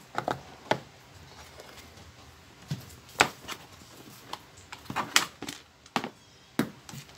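Handling noise from hard plastic: a dozen or so separate sharp clicks and knocks as a screwdriver-bit tray and its tool case are handled, closed and set down on a table, loudest about three and five seconds in.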